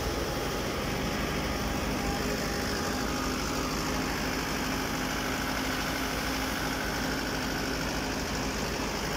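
Massey Ferguson 385 tractor's four-cylinder diesel engine running steadily under load, driving a belt-driven thresher. The engine and the spinning thresher make one continuous, even drone.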